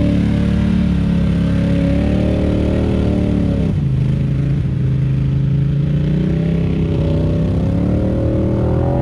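ATV engine running under throttle through mud and water. Its pitch drops about four seconds in as the throttle eases, then climbs again near the end.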